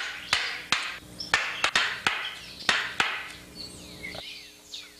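Practice swords striking together: about ten sharp knocks in quick, irregular runs over the first three seconds, then they stop. Birds chirp behind.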